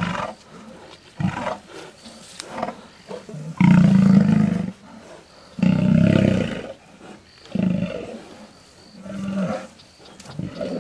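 Lions snarling and roaring in a fight: a string of short snarls, with two long, loud roars about four and six seconds in.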